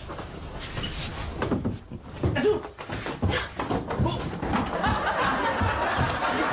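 Indistinct voices mixed with a run of short knocks and bumps.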